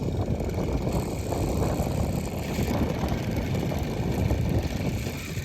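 Gusty wind buffeting the microphone: a rough, uneven low rumble.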